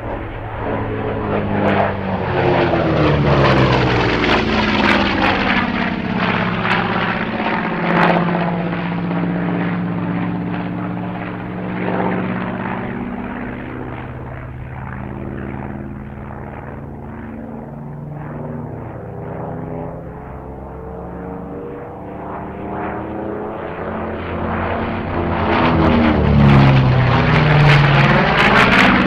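Grumman F7F Tigercat's twin radial piston engines and propellers droning as the aircraft flies past. The pitch drops as it goes by in the first several seconds and rises again as it comes back toward the end, where it is loudest.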